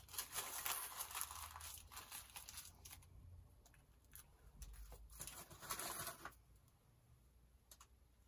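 Aluminium foil crinkling as a foil-wrapped burrito is handled, for about the first three seconds and again around five to six seconds in.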